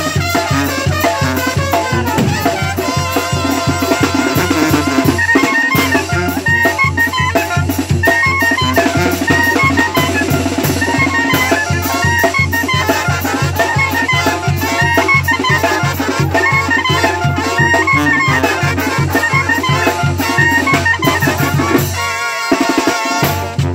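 Oaxacan brass band playing a lively dance tune on clarinets, trumpets, sousaphone and bass drum, with a steady beat. The bass drops out for a moment near the end before coming back in.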